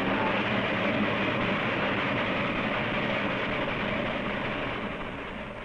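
Lionel toy electric train running along the layout track: a steady rolling clatter that fades near the end as the train moves off.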